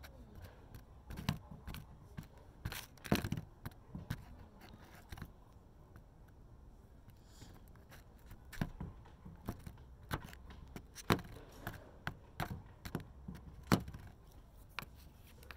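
Wooden stick stirring paint in a small pot, knocking and scraping against the pot's sides in irregular clicks and taps, with a few sharper taps.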